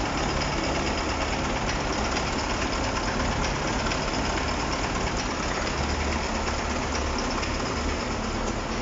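KAMAZ 6520 truck's diesel engine idling steadily just after its first start following a capital overhaul.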